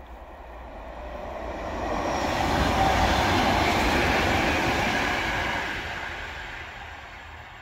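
SŽ 310 Pendolino electric tilting train passing by: the rumble of its wheels on the rails swells, is loudest a few seconds in, then fades as it runs away.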